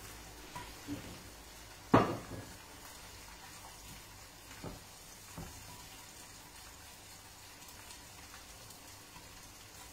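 Salmon steaks sizzling faintly on a hot, covered griddle, a low steady frying hiss. One sharp knock about two seconds in, and a few lighter knocks of kitchen things being handled.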